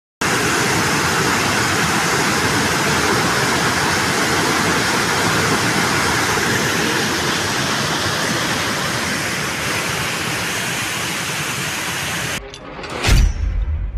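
Steady rushing of water pouring through a dam spillway, a loud even noise. It cuts off suddenly near the end, followed by a single hit and a low bass note as music starts.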